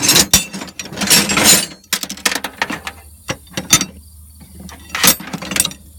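A metal chain wrench being handled among other tools in a toolbox drawer: a dense flurry of metal rattling and clinking over the first two seconds, then scattered clanks and a short rattle about five seconds in.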